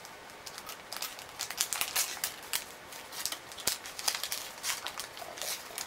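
Toy paper banknotes rustling and crinkling in the hands as they are handled and straightened, a quick irregular run of small paper crackles.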